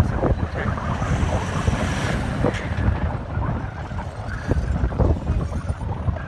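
Strong wind buffeting the microphone, with a four-wheel drive's engine running underneath as a Toyota Land Cruiser troop carrier strains to tow a bogged Jeep through soft sand.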